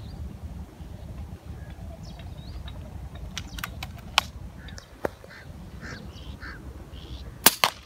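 Birds calling in short separate notes every second or so over a low rumble, with a scatter of sharp clicks; the loudest are two clicks in quick succession near the end.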